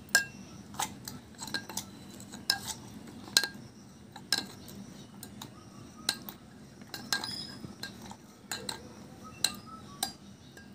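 Metal muddler pounding lemon slices, mint and sugar in a tall drinking glass: irregular knocks and clinks of metal against glass, roughly one a second.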